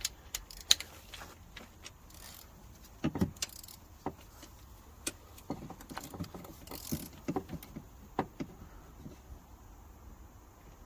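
Scattered metallic clicks and knocks of hand tools, a socket on an extension bar being fitted and worked on the cylinder head bolts of a BMW M57 diesel engine, with a couple of short scrapes.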